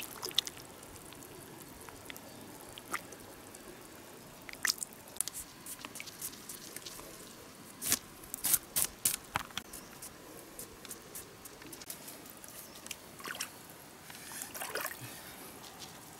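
Small wet handling sounds in shallow muddy water: scattered drips, squelches and clicks, with a quick cluster of sharper clicks about halfway through as green sticks are tied together by hand, and a short slosh of water near the end.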